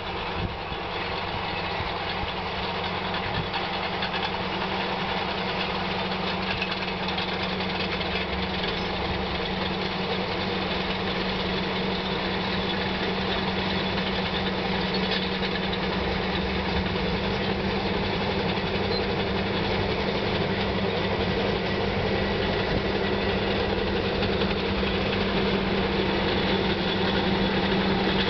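Caterpillar D8 crawler dozers' diesel engines running under load, the lead D8R towing a heavy coal silo with a D8T pushing behind, a steady deep hum that grows gradually louder as they approach.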